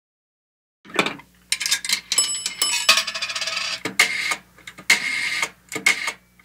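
Outro sound effect: a rapid run of mechanical clicks and clatter, with a short bell-like ring about two seconds in and a faint steady hum underneath.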